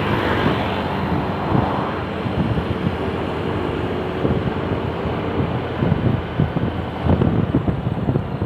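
Road traffic running past, with strong wind buffeting the microphone in gusts.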